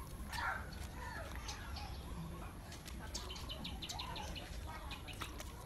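Birds chirping and calling: short curved calls and a quick run of high chirps about three seconds in, over a steady low rumble.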